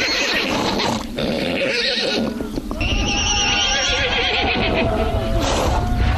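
Horses neighing and whinnying several times in wavering calls, over a low rumble.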